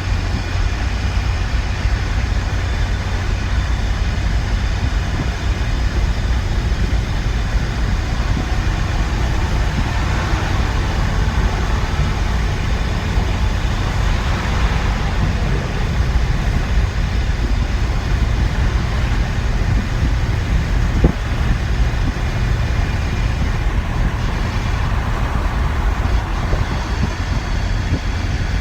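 Ford Ranger pickup driving at highway speed, heard from inside the cab with the rear window out: a steady, loud rumble of road and wind noise over the engine. There is a single brief knock about two-thirds of the way through.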